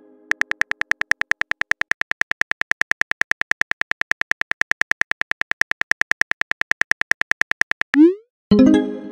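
Phone keyboard tap clicks in a fast, even stream, about ten a second, as a text message is typed. Near the end comes a short rising whoosh as the message is sent, then a brief ringing chime.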